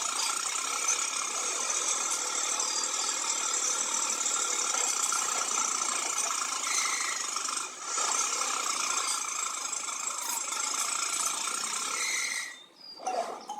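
A small motor running steadily, dipping briefly about eight seconds in and cutting off near the end.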